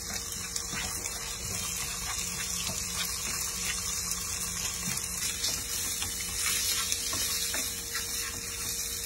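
Diced bacon sizzling as it fries in a frying pan, with a spatula scraping and stirring now and then over a steady low hum.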